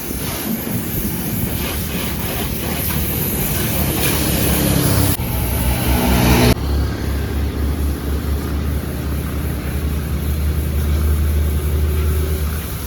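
Pressure washer spraying a car: a steady hiss of water spray over a low, steady hum. About six seconds in, the hiss drops away suddenly and mostly the low hum remains.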